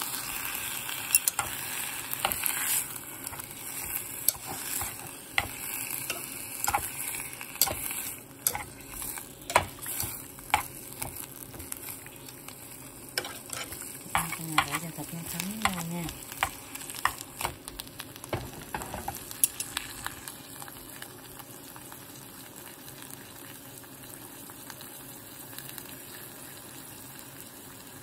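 Sliced marinated pork and onion sizzling in a hot oiled granite-coated pot, with sharp clicks and knocks as the food is stirred against the pot over the first twenty seconds or so. After that the stirring stops and only a steady, quieter sizzle remains.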